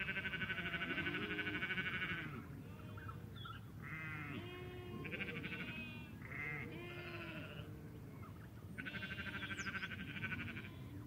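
A flock of sheep bleating, many voices overlapping, some with a rapid quaver. The bleating is loudest in the first two seconds and again about nine seconds in, over a steady low rumble.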